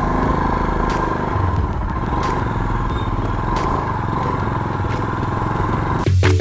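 Royal Enfield Himalayan's single-cylinder engine running steadily at low revs, with a short clatter near the end.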